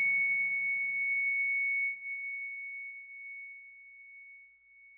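The last note of a song ringing out: a single clear, high, bell-like tone that fades away slowly, with a low hum beneath it dying out about halfway through.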